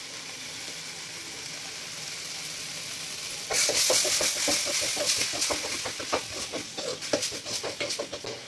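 Thick tomato chutney sizzling steadily in a metal kadai. About three and a half seconds in, a steel spoon starts stirring and scraping the pan: the sizzle gets louder and quick clicks of spoon on metal run through it.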